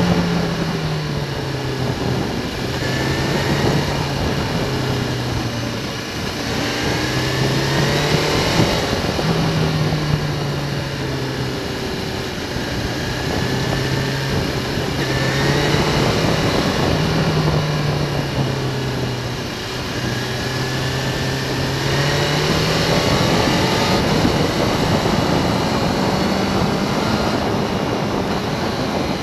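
Motorcycle engine running on the move, its pitch stepping up and down every few seconds with throttle and gear changes, with short rising revs here and there. Steady wind and road noise on the bike-mounted microphone runs underneath.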